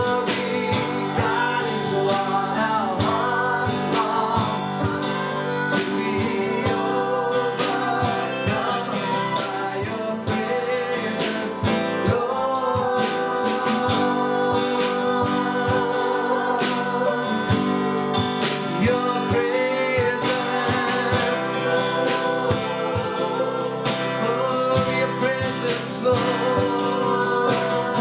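Worship song: singing over music with strummed guitar, playing steadily throughout.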